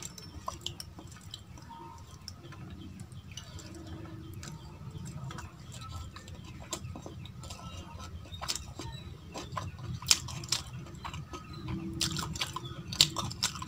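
Bare fingers squishing dal-soaked rice on a steel plate, with many short clicks of fingers and nails against the metal, and wet chewing of rice and dal. The clicks grow louder and closer together in the second half.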